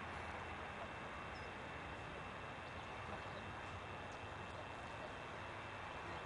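Steady hiss of background noise with a faint, steady high tone running through it; no distinct sound stands out.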